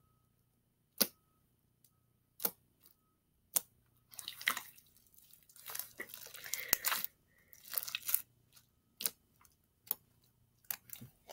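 Gray slime with foam balls mixed in, poked and kneaded by hand: short sharp pops about once a second as fingers press in and pull out, then a few seconds of wet crackling and squishing as it is squeezed, and more pops near the end.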